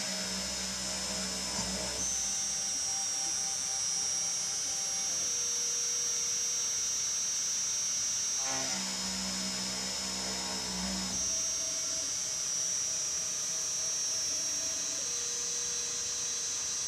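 A 2.2 kW CNC milling spindle with a 6 mm two-flute endmill cutting aluminium: a steady high-pitched whine over the cutting noise. Twice, at the start and again about nine seconds in, a lower hum joins for about two seconds.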